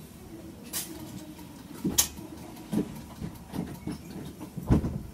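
Irregular knocks and thumps inside a stopped electric train car, about six over a few seconds over a low steady hum, the loudest near the end.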